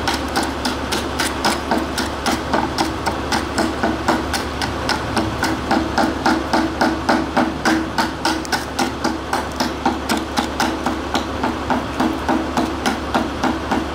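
Steel needle-nose pliers tapping and chipping at the leftover glass of a broken CFL tube in its plastic base, a steady run of sharp taps at about three a second.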